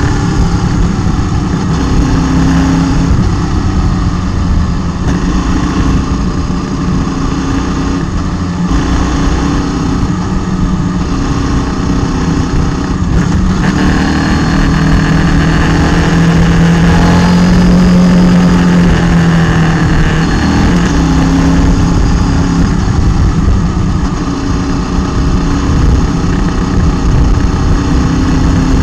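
Motorcycle engine running on the climb, its note rising and falling gently as the throttle and gears change, heard from a camera on the bike with a steady rush of wind over the microphone.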